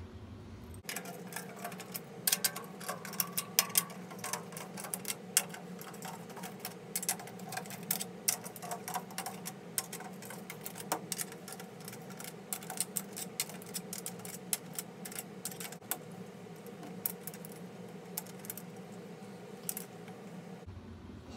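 Wooden drumsticks being fitted between a snare drum's head and its slackened snare wires: irregular light clicks of wood on the drum and metallic rattles of the snare wires as they are handled, over a faint steady hum.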